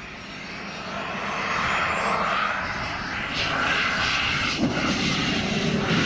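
Radio-controlled F-16 model jet coming in to land, its engine a high whine over a rushing noise that grows louder as it nears. A sharp thud about four and a half seconds in as it touches down on the grass.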